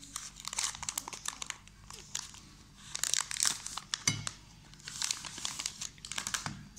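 Plastic wafer wrapper crinkling and rustling in clusters as it is torn open by hand, with a dull knock about four seconds in as the cardboard tray inside comes out.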